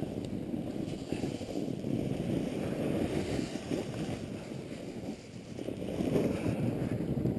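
Snowboard sliding and carving over groomed snow, a rough low scraping hiss that rises and falls with the turns and is a little louder near the end, with wind buffeting the microphone.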